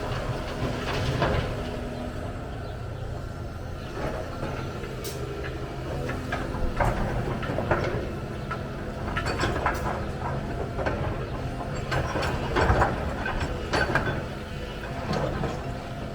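Excavator's diesel engine running steadily, with scattered clanks and rattles of the working machine and material, thickest in the middle stretch.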